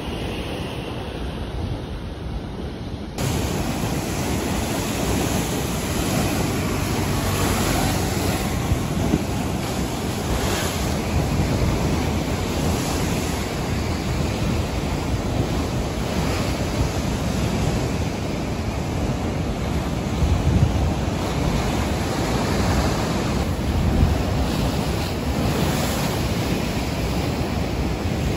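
Rough sea surf breaking in a steady wash of noise, with strong wind buffeting the microphone. The sound changes abruptly about three seconds in.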